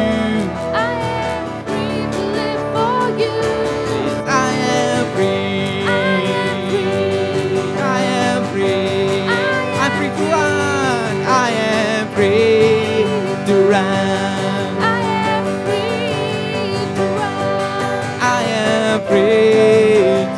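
Live worship band playing a praise song: male and female voices singing over strummed acoustic guitar, keyboard and cajón.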